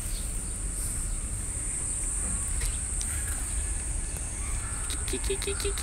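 Outdoor summer ambience dominated by a steady, high-pitched insect drone. A low background rumble runs under it, and about five seconds in a quick run of short, low repeated notes sounds.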